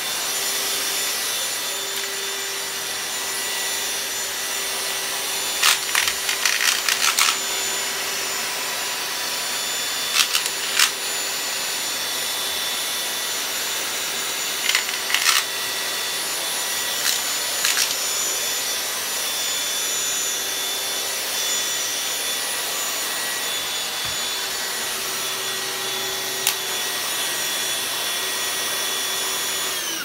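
Cordless stick vacuum running on carpet with a steady motor whine, broken several times by short bursts of sharp rattling clicks as hard debris is drawn into the floor head. Near the end the motor is switched off and its whine falls away.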